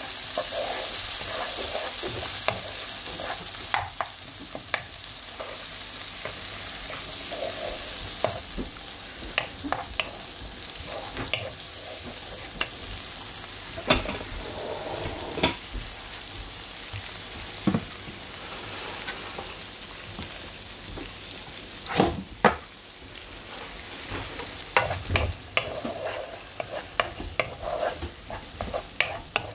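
Chopped onion and tomato sizzling in oil in a non-stick frying pan while a wooden spoon stirs them, with irregular knocks and scrapes of the spoon against the pan. The sizzle is strongest in the first few seconds.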